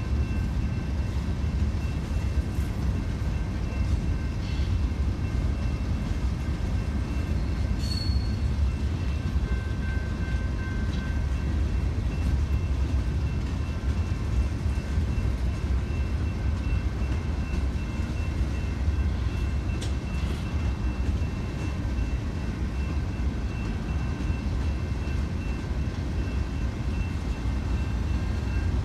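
Freight train's hopper and tank cars rolling through a grade crossing: a steady low rumble of wheels on rail, with faint steady high-pitched tones above it.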